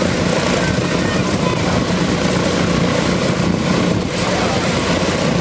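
Boeing B-17 Flying Fortress's Wright R-1820 Cyclone nine-cylinder radial engines running steadily on the ground with propellers turning: a continuous, even low rumble with a steady hum.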